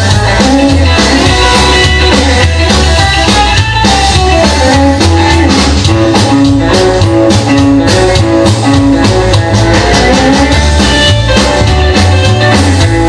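Rock and roll record playing, with a steady beat.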